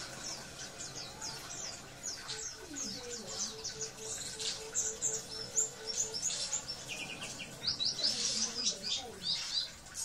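A caged white-eye (pleci) chirping, with quick high notes and short rapid runs that grow busier in the second half. A low, evenly pulsed sound runs for a few seconds midway.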